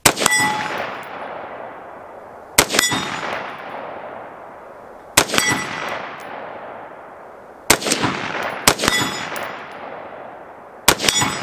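Six single rifle shots from a Diamondback DB15 AR-15 in 5.56, mostly about two and a half seconds apart, with two close together near the middle. Each shot is followed by a long echoing decay and a short metallic ring.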